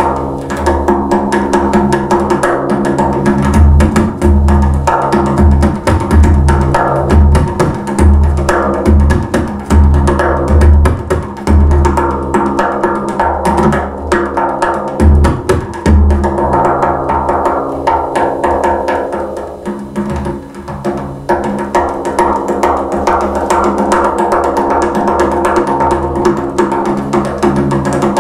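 A daf (large frame drum) played solo by hand, its head ringing on between strokes. Deep bass strokes mix with rapid light finger strokes for the first half. From about two-thirds of the way in, the bass strokes stop and only the quick lighter strokes go on.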